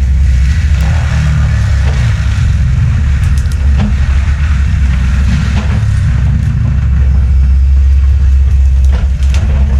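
Heavy diesel land-clearing machine running steadily under load, with a few scattered sharp cracks.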